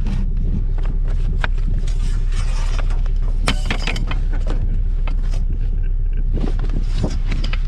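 A vehicle engine running steadily at a low, even pitch, with scattered clanks and knocks from junk being moved, the loudest cluster about halfway through.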